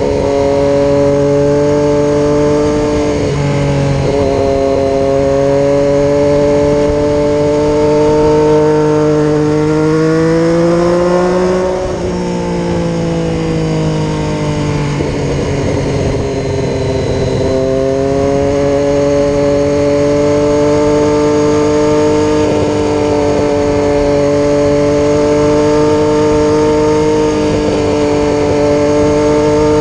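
Triumph Daytona 675R's inline three-cylinder engine running under steady throttle through a long curve. Its pitch climbs about ten seconds in and drops sharply two seconds later, then rises gradually again through the rest.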